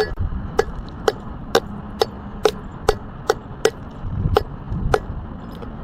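Knife slicing repeatedly through kinetic sand, a sharp tap of the blade on the board with each cut, roughly two cuts a second.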